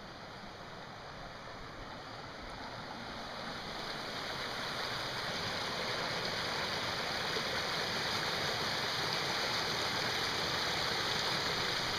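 Small mountain creek rushing and splashing over rocks in little cascades, a steady watery rush that grows louder over the first few seconds and then holds.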